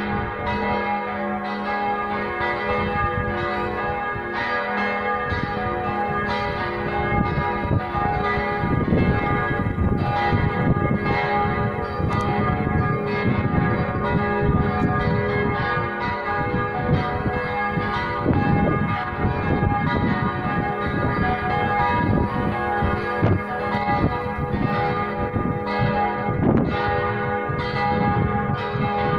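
Four church bells ringing together in a partial peal: irregular, overlapping strikes over a continuous hum of ringing tones, a little louder from about eight seconds in.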